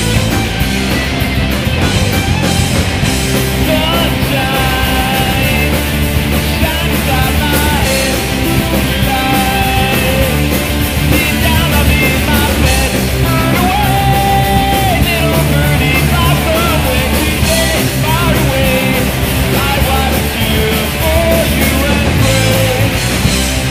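Rock song with a singing voice over a full band, steady and loud throughout.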